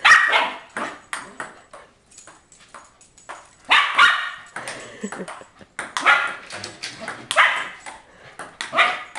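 American Eskimo dog barking in loud bursts, about five times, with ping-pong ball clicks between the barks.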